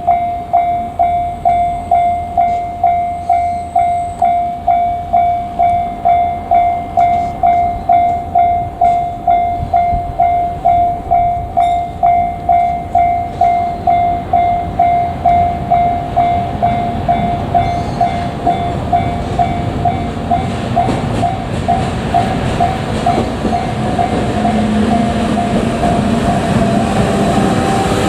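Japanese level-crossing warning bell ringing steadily at about two strokes a second. From about two-thirds of the way in, the rumble of an approaching freight train hauled by an EF510 electric locomotive grows until it drowns out the bell near the end.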